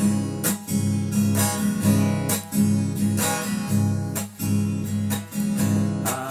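Acoustic guitar strummed in a steady rhythm, about two strokes a second, playing the instrumental introduction of a song before the voice comes in.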